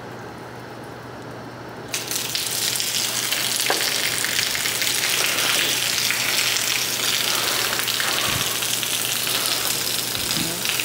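Backed-up drain water spraying out around a loosened cleanout cap on a clogged sanitary drain pipe. It starts suddenly about two seconds in and keeps going as a steady hiss, over a low steady hum.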